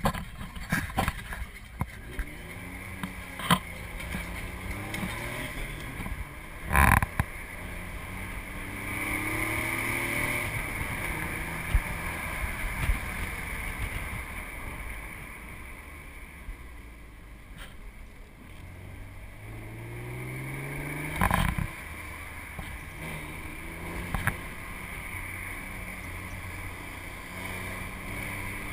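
Ford V8 engine of a Cobra roadster accelerating uphill, the revs climbing through the gears several times, with wind rushing past the open cockpit. A few short, loud knocks stand out, the biggest about 7 seconds in and again about 21 seconds in.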